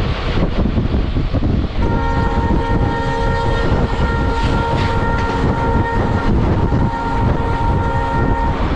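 Indian Railways train running with a continuous rumble; about two seconds in a multi-note train horn starts and is held as one long steady blast for about seven seconds, stopping near the end.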